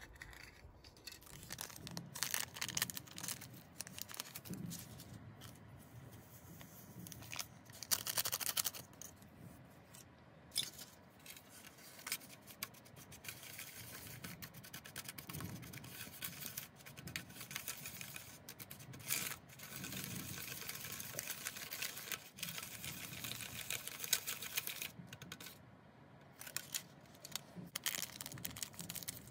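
A small plastic spoon scraping and stirring candy powder and water into a paste in a plastic tray, with crinkling and tearing of foil powder packets.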